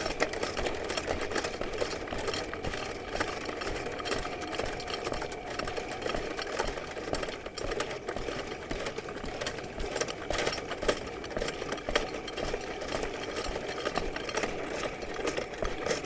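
Rented electric drain snake running in forward, its motor turning the steel cable down a main sewer line, with a steady motor sound and a continuous, irregular rattling and clicking of the spinning cable.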